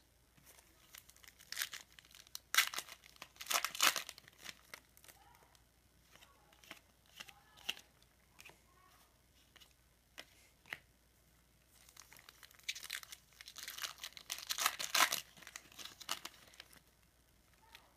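A trading card pack wrapper being torn open and crinkled, in two bouts of crackling with light handling rustle of the cards between.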